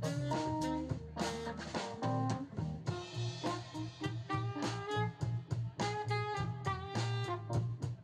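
Instrumental background music with a steady beat and pitched instrument notes.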